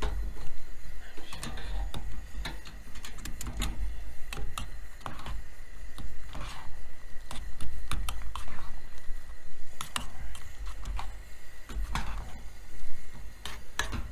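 A utensil stirring moist stuffing in a stainless steel Pathfinder canteen cup, scraping and clicking irregularly against the cup's metal sides over a low steady rumble.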